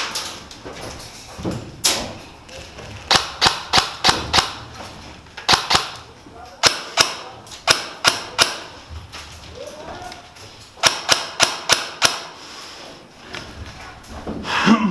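Airsoft guns firing single shots: sharp snaps in quick volleys of three to six, several volleys a second or two apart.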